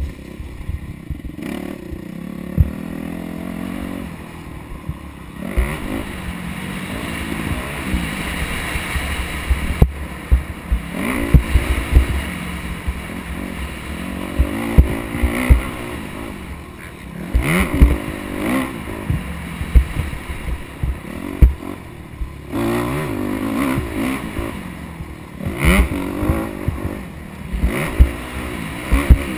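Motocross dirt bike engine revving up and falling back over and over as the bike is ridden around a dirt track, heard from the rider's helmet. Frequent sharp thumps and clatter break in throughout.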